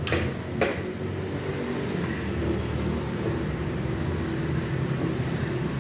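Two light metal clinks of hand tools in the first second, then a steady low rumble.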